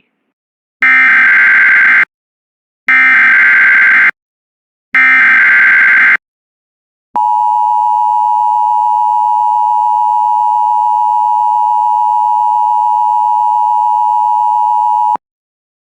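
Emergency Alert System header: three short bursts of SAME digital data tones, about a second each with short gaps, carrying the coded tornado watch alert. They are followed by the steady two-tone EAS attention signal, held for about eight seconds before it cuts off.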